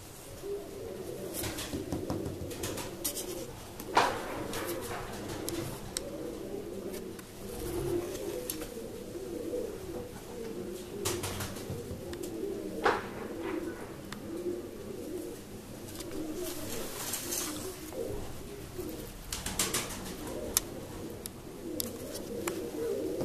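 Rostov chilik fancy pigeons cooing without a break in a small loft, with occasional sharp clicks or taps, the loudest about four seconds in.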